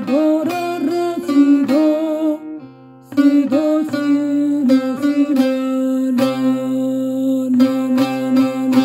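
Bağlama playing a Turkish folk tune: quick picked melody notes, some bent or slid, over a steady ringing drone. The playing dips briefly about three seconds in, then carries on.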